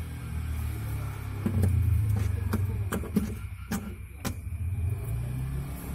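Clicks and knocks of a plastic twin dashboard fan and its round tape pad being handled against the dashboard, several in a row from about a second and a half in. A steady low hum runs underneath.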